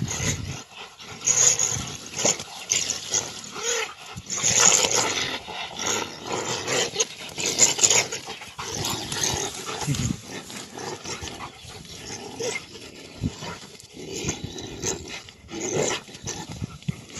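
Animal calls, a dense run of irregular, noisy outbursts that come and go in loud surges.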